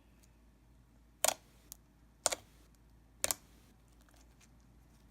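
Three sharp clicks or taps, about a second apart, with a fainter one between the first two.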